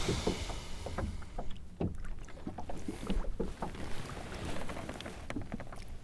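Water splashing and slapping against the side of a small boat in irregular knocks, with a low wind rumble on the microphone.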